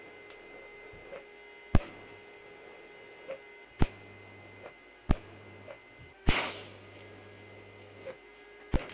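Arc welder tack-welding steel square tube: a sharp crack each time the arc strikes, five times, the one about six seconds in followed by a short burst of crackle. A faint steady hum and whine runs between the tacks.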